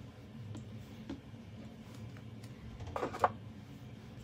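Faint handling noise: a few soft taps, then a short rustle ending in a sharp click about three seconds in, over a low steady hum.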